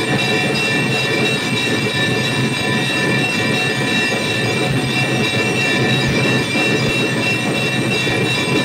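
Temple bells and metal percussion of an evening aarti clanging without pause: a loud, steady metallic din with several bell tones ringing on over a dense clatter.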